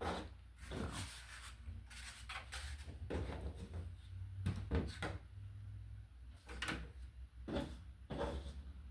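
Scattered knocks, clicks and rustling as the laptop cooling pad and its packaging are handled.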